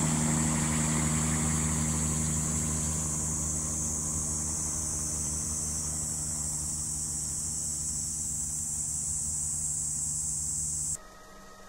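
Bell 505 helicopter with its Safran turboshaft, a high steady turbine whine over the low rotor tones, fading over the first few seconds as it flies away and then holding steady. Near the end the sound cuts off suddenly to a faint hum.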